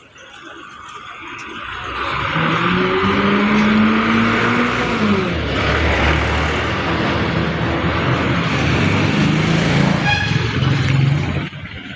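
A passenger jeepney's engine running loud as it passes close by. Its pitch climbs steadily and then drops about five seconds in, and engine noise goes on until it falls away near the end.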